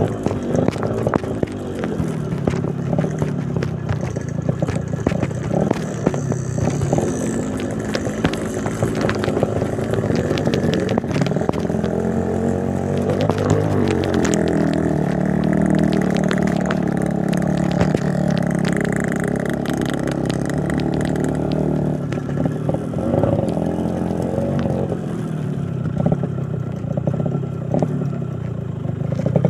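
Motorcycle engine running while riding over a rocky road. The engine note rises and falls with the throttle, and loose stones clatter and knock throughout.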